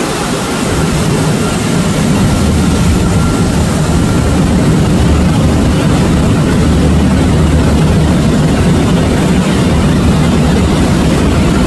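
Jet engines of a Boeing airliner running loud and steady with a deep rumble, growing slightly louder about a second in and then holding level.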